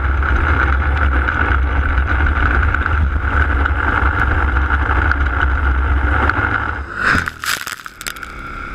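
ATV engine running steadily under way on a trail. About seven seconds in there is a short burst of crackling noise and the engine drops back to a quieter, lower running.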